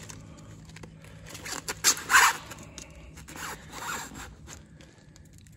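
White PVC pipe insert being pressed and twisted down into a hole cut in foam and plastic sheeting: short rasping scrapes, the loudest about two seconds in and another about three and a half seconds in.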